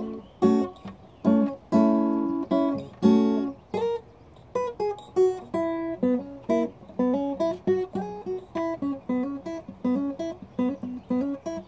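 Steel-string acoustic guitar played solo: a few strummed chords ring out at first, then from about four seconds in a run of picked single notes moves up and down in pitch.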